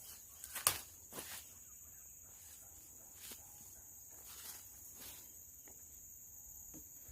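Footsteps through brush, a few distinct steps in the first second and a half and fainter ones after, over insects chirring steadily at a high pitch.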